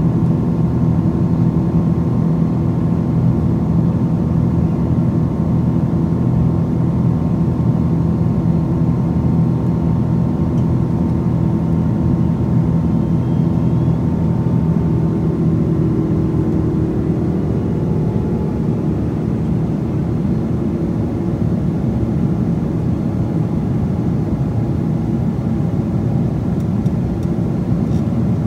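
Boeing 777-200's Pratt & Whitney turbofan engines heard from inside the cabin over the wing, running steadily at climb power. The result is a loud, even drone with a deep hum, and a higher whine fades out about halfway through.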